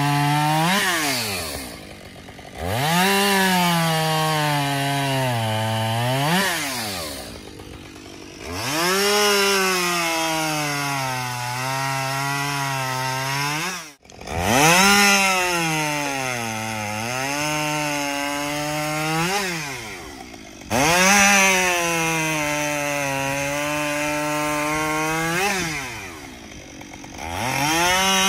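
Two-stroke Husqvarna gas chainsaw bucking logs: the engine runs at high revs and its pitch sags as the chain loads in the wood, then drops back to idle between cuts and revs up again, several times over.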